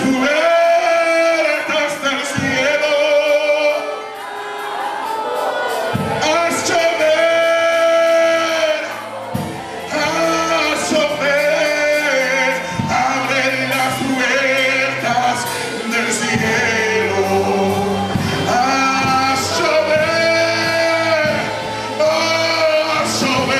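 Live Spanish-language worship song: a man sings held, wavering notes into a microphone over a band's accompaniment.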